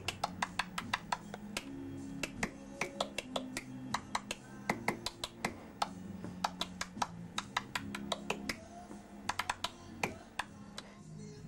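A pencil and a slim pen tapped like drumsticks on a hard desk, making quick, uneven clicks with short flurries of rapid taps, which die away near the end. Faint music plays underneath.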